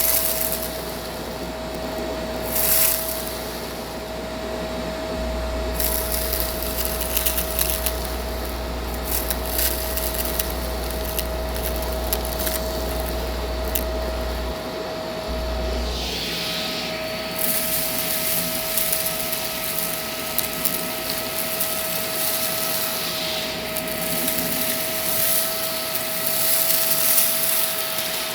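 Shark vacuum cleaner running steadily with a constant motor whine and airflow hiss, scattered crackles of dirt being pulled in. About halfway through the sound changes: a second, higher whine joins and the hiss gets brighter.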